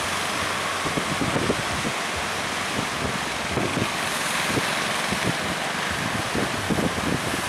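Strong wind buffeting the microphone in irregular gusts over a steady rush of surf.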